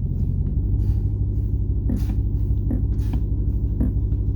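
The supercharged 6.2-litre Hemi V8 of a 2020 Dodge Challenger SRT Hellcat Redeye idling steadily in drive, heard from inside the cabin. The shifter clicking it makes under braking in park and neutral is not present in drive.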